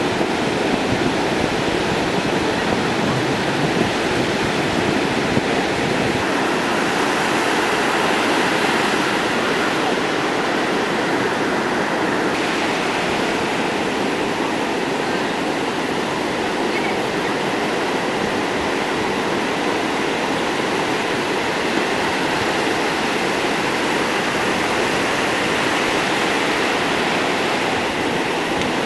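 Ocean surf breaking on a beach: a continuous, steady wash of waves and whitewater.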